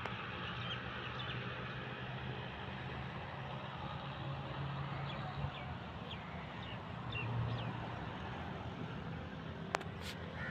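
Steady outdoor background rumble with faint short bird chirps in the middle and a sharp click near the end.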